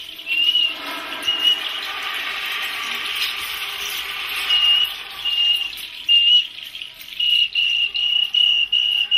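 Insect chirping: one steady high note, repeated in short pulses that come regularly at about two to three a second from about seven seconds in. Under it in the first half is a broad hiss.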